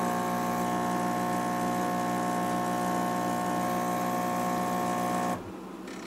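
Gaggia Brera super-automatic espresso machine's pump humming steadily as it pushes hot water through the coffee to brew a shot. It cuts off abruptly about five seconds in as the shot finishes.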